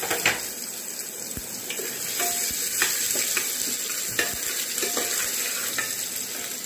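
Chopped ginger, dried red chillies and whole cumin sizzling in hot mustard oil in a pressure cooker, stirred with a metal spatula that clicks and scrapes against the pot now and then.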